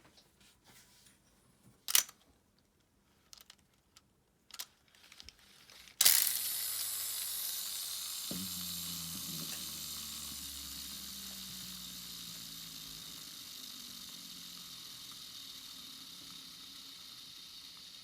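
Abu Garcia Ambassadeur 5500C baitcasting reel spool flicked into a free spin after a few small handling clicks: a sudden start about six seconds in, then a steady whirring hiss that slowly fades as the spool spins down.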